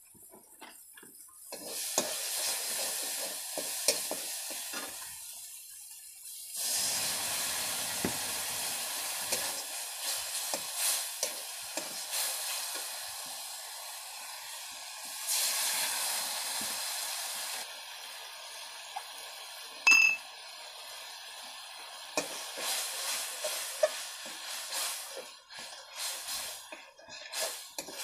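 Curry ingredients frying in hot oil in a kadai over a wood fire: a hissing sizzle that flares up about two seconds in and again around six and fifteen seconds, as food goes into the pan. A metal spatula stirs and scrapes, with one sharp clink of steel utensils near the twenty-second mark.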